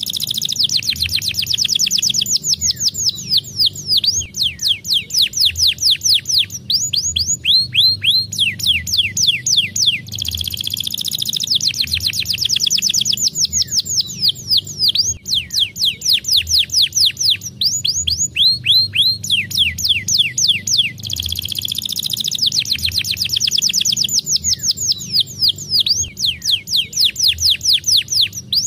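Domestic canary singing a long, loud song of fast trills made of downward-sweeping notes, broken by buzzy rolls. The same run of phrases comes round about every ten seconds.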